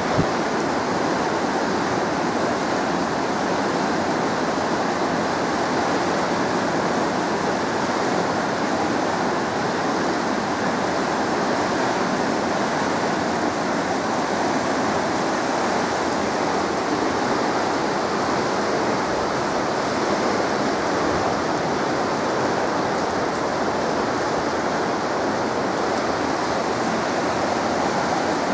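Water rushing steadily through the open gate of a hydroelectric dam, an even, unbroken rush of spilling water.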